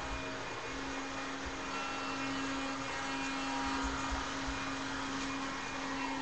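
Upright vacuum cleaner running: a steady motor hum over a constant rush of air noise.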